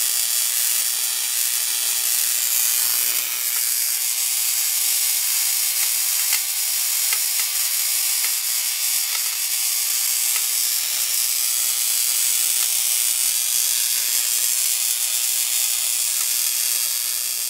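High-voltage electrical discharge sizzling and hissing steadily, with a few faint snaps in the middle and a faint low hum underneath.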